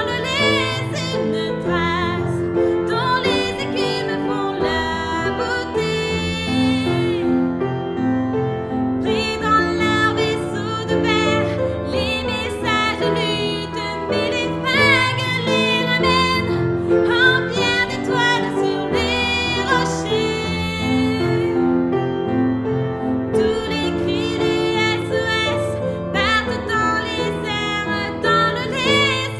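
A slow pop ballad: a voice singing long held, wavering notes over piano and sustained backing chords, with short pauses between sung phrases.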